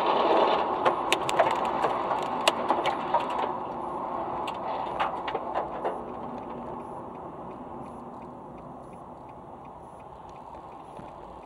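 Road and engine noise inside a car driving on a motorway, with a cluster of sharp cracks and clicks in the first three seconds, then a faint, regular ticking under the steady road noise.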